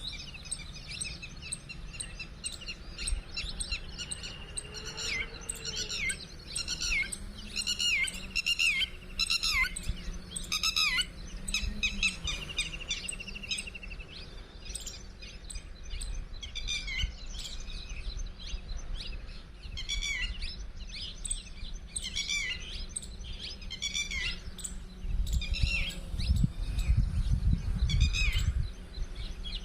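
Birds chirping: many short calls that slide down in pitch, coming every second or so, with a longer trilling call about twelve seconds in. A low rumble runs underneath and grows louder near the end.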